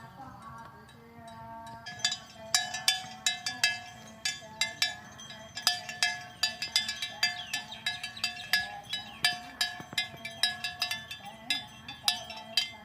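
Bells hung on cows' necks clanking irregularly as the animals move, several ringing strikes a second, starting about two seconds in.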